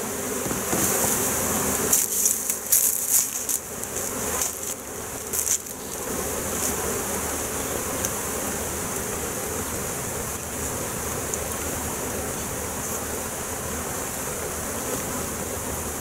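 Honey bees buzzing steadily around an open hive, a strong colony that is close to swarming. Between about two and six seconds in there are a few sharp knocks and clicks as wooden frames are handled.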